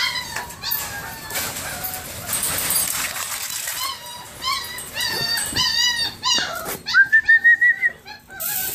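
German Shorthaired Pointer puppies whining and yelping in short, high-pitched arched cries, with a quick run of about six loud yips near the end.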